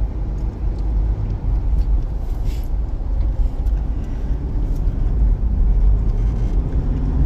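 Steady low rumble of engine and tyre noise, heard from inside a moving car's cabin at highway speed.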